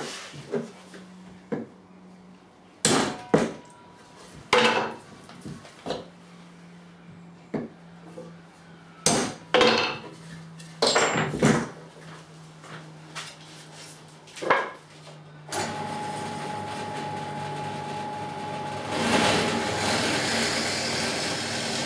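Sharp, irregular knocks of wooden blocks and hand tools being handled and set down on a wooden workbench. About fifteen seconds in, a bench pillar drill's motor starts and runs with a steady hum, growing louder near the end.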